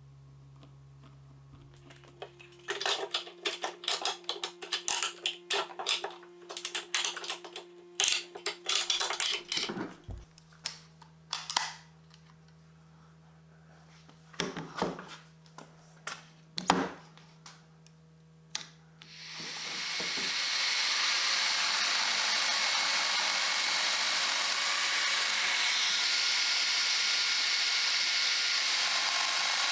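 A series of sharp clicks and knocks as the oak workpiece and tool are handled. About two-thirds through, a Festool Domino joiner with its dust extraction spins up over a couple of seconds, then runs steadily.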